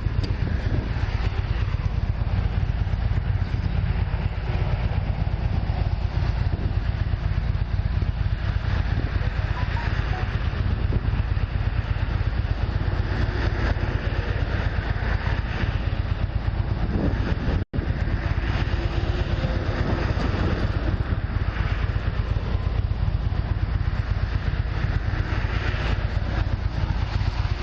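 Police motorcycle engine running steadily, picked up by the officer's body camera, with a low, even rumble. The sound cuts out for an instant about eighteen seconds in.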